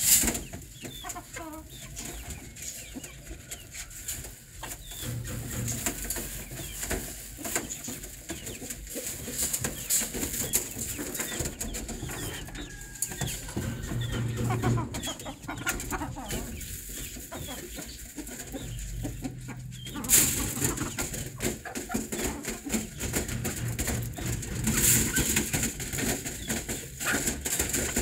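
Aseel chickens and roosters in wire-mesh cages clucking, with wing flapping and many short knocks and scratches as the birds move about and peck at grain on the cage floor. A louder burst of noise comes about two-thirds of the way through.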